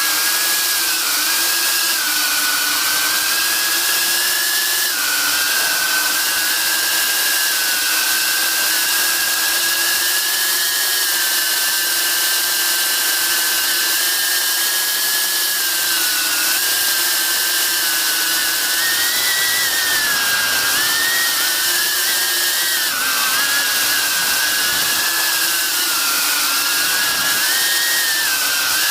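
Eachine Cvatar FPV quadcopter's motors and propellers whining steadily, heard from a camera mounted on the drone. The pitch wavers up and down with throttle, with dips around the middle and near the end, over a loud rushing hiss.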